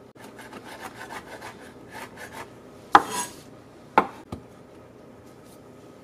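Chef's knife chopping fresh rosemary and thyme leaves on a wooden cutting board: quick blade taps, about five a second, for the first two and a half seconds, then a few single louder knocks about three and four seconds in.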